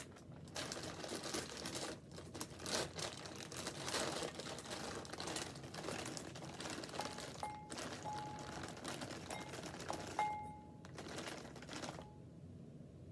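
Plastic bag of frozen tater tots crinkling and rustling as the tots are shaken out onto a kitchen scale. Several short electronic beeps come about seven to ten seconds in.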